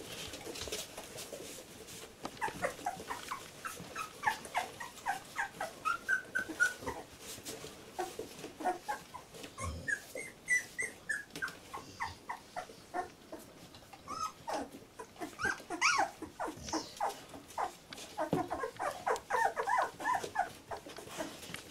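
Two-week-old Labrador retriever puppies whimpering and squeaking, many short high calls coming in clusters.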